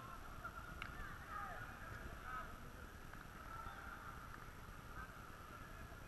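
Distant shouts and calls of players across the pitch, faint and blurred together, over a low rumble, with a short click about a second in.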